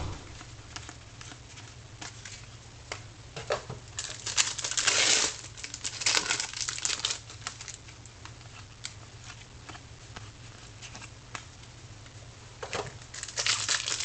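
Football trading card pack wrapper crinkling and being torn open while cards are handled and flicked through. There are louder bursts of crinkling about four seconds in, around six seconds, and again near the end.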